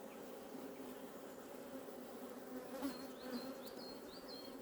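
Honeybees humming steadily around an opened hive. A run of short, high chirps comes in about three seconds in.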